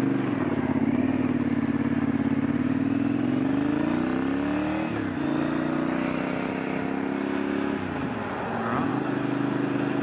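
Triumph Scrambler parallel-twin engine running through an aftermarket stainless high-level exhaust while riding. The engine note climbs under acceleration and drops with a gear change about five seconds in. It holds steady, falls again near eight seconds, then climbs and levels off.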